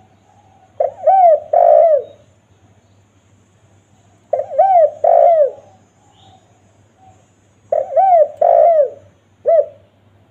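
Spotted dove (tekukur) cooing in three phrases about three and a half seconds apart. Each phrase is a short coo followed by a longer, rolling coo, and the last ends with an extra short note.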